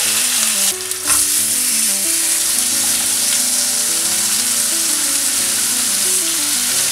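Seasoned fish fillets frying in hot oil over medium heat, a steady sizzle that dips briefly about a second in.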